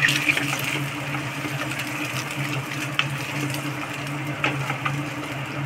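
Eggs frying with onions in a non-stick kadai, sizzling, with a few taps and scrapes of a wooden spatula against the pan. Under it runs a steady, evenly throbbing electric hum from the induction cooktop.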